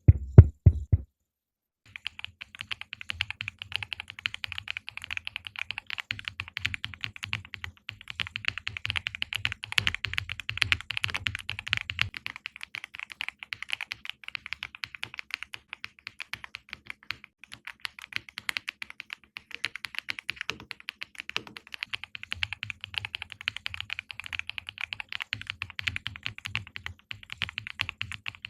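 Fast, continuous typing on a Furycube K99 Pro mechanical keyboard with platinum switches: a dense stream of key clacks. It opens with a few heavy low thumps, then a pause of about a second before the typing starts.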